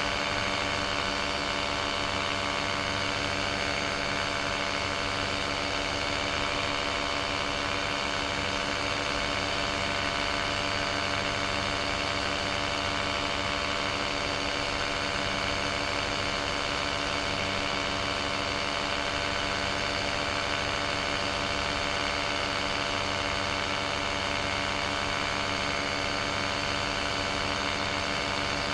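Paramotor engine and propeller running steadily in level flight, a constant drone that holds the same pitch and level throughout.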